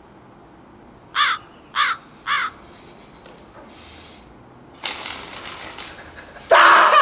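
A crow caws three times, about half a second apart, as a comic sound effect. Later comes a stretch of rustling noise, then a short loud burst just before the end.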